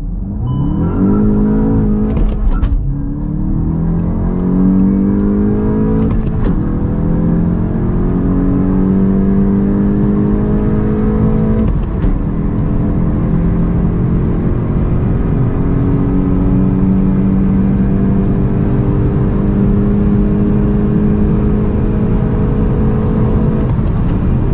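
VW Golf 8 GTI's 245 hp 2.0-litre turbocharged four-cylinder engine under full-throttle acceleration, heard from inside the cabin. The engine note rises through each gear, with quick upshifts about 2.5, 6 and 12 seconds in. After the last shift the pitch climbs only slowly as the car pulls past 200 km/h.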